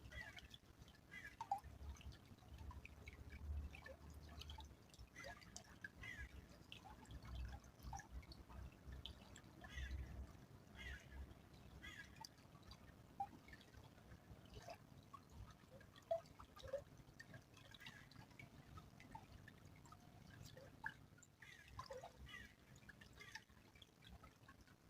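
Faint trickle of a small stream, with irregular little drips and plinks of water.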